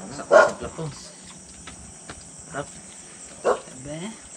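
Steady high-pitched chirring of crickets at night, continuous throughout. A short loud sound cuts in about half a second in, with brief bits of voices later on.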